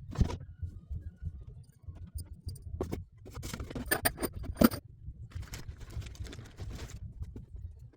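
Irregular knocks, clicks and clatter of things being handled and moved, with a burst of clattering a few seconds in that ends in a sharp knock, over a steady low rumble.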